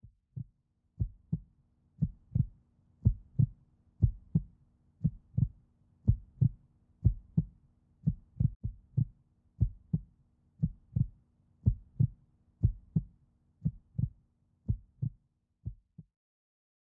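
Heartbeat: pairs of low thumps, lub-dub, about once a second, ending about sixteen seconds in.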